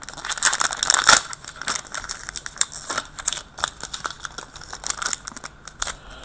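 Plastic card-pack wrapper crinkling and crackling in irregular snaps as hands try to tear it open; the pack is stubborn and will not open.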